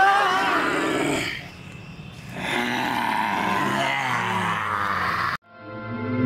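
A horror roaring-growl sound effect, a rough drawn-out monster roar, after a short burst of cries. Near the end it cuts off suddenly and eerie music with held tones comes in.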